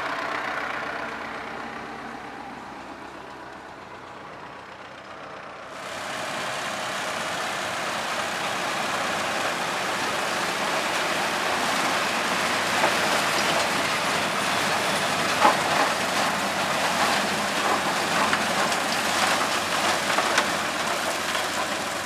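Tractor and trailed forage harvester chopping corn for silage and blowing it into a trailer: a steady, loud, noisy rush of machinery. It starts abruptly about six seconds in, after a quieter, fading engine sound.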